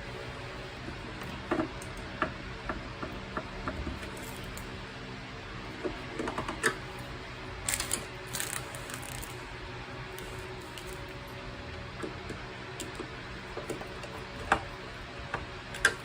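Scattered light clicks and taps of small plastic and metal parts being handled and fitted while the CUE touchscreen unit is reassembled, with a short rustle about eight seconds in and the two sharpest clicks near the end, over a steady background hum.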